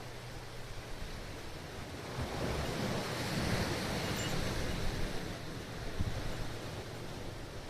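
Sea waves washing onto a rocky shore: the surf swells about two seconds in and eases off near the end. Wind rumbles on the microphone.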